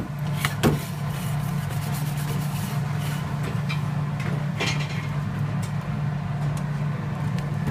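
Steady low mechanical hum of kitchen equipment, with a few light knocks and clicks.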